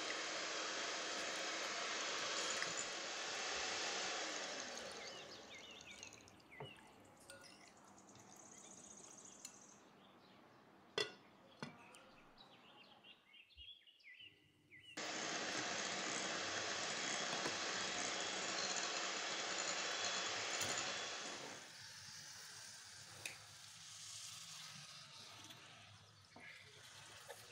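Electric hand mixer with twin wire beaters whisking eggs and powdered sugar in a glass bowl for a sponge batter. It runs for the first five seconds or so, stops, then runs again from about fifteen seconds to about twenty-one seconds, with a few light clicks in the quieter gaps.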